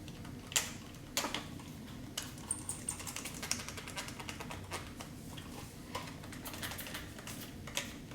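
Irregular light clicks and taps from hand work cleaning a tire's bead, over a steady low hum.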